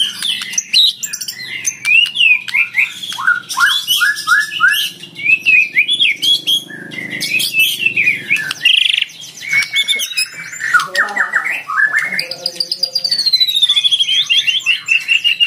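White-rumped shama (murai batu) singing a loud, varied song: quick runs of short rising and falling whistled notes, with a long, slowly falling whistle near the end. It is a combative 'fighter'-style song of the kind played as a lure to set rival shamas singing.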